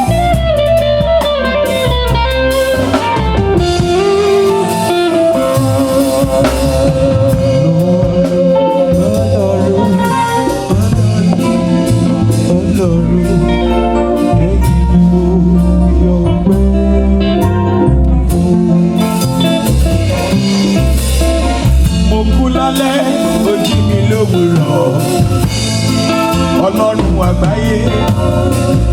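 Yoruba gospel band music: electric guitar lines over drum kit and percussion, an instrumental stretch between sung verses.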